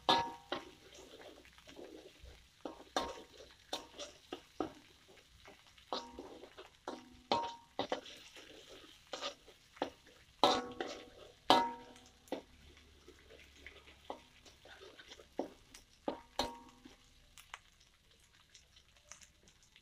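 Metal spatula scraping and knocking against an aluminium wok while stirring fried spice paste, the wok ringing briefly after the louder strikes. The strikes come irregularly and stop a few seconds before the end.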